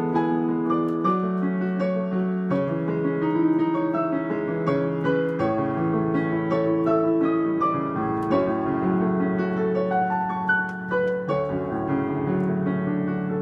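Solo piano playing a dark, classical-style piece: a continuous flow of melody notes over held low bass notes, picked up by a phone's microphone.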